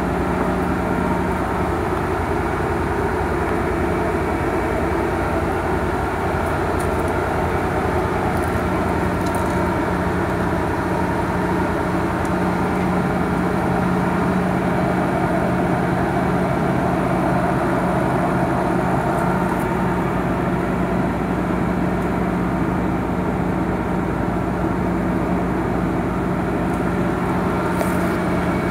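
Nissan 300ZX (Z32) twin-turbo's VG30DETT V6 engine idling steadily.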